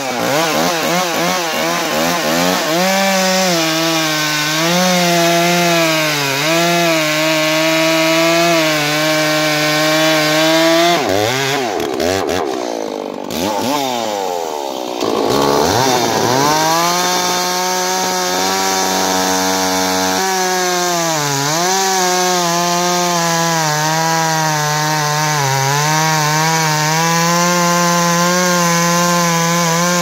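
Two-stroke gas chainsaw cutting through a firewood log, the engine held at a steady pitch under load. Between about a third and halfway through it drops off and revs back up before settling into the cut again.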